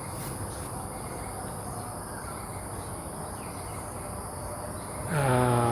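Steady insect chorus, a constant high-pitched hum over outdoor background noise. Near the end a man's drawn-out spoken word breaks in.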